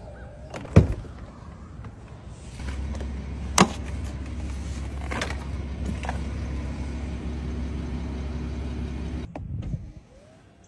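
Rolls-Royce car clicks and knocks over a steady low hum, then a sudden cut. Near the end an electric motor starts up with a rising whine, like a power-closing door or window mechanism.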